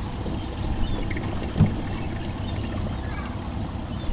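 Water pouring and bubbling in a live-bait tank, over a steady low rumble, with a single thump about one and a half seconds in.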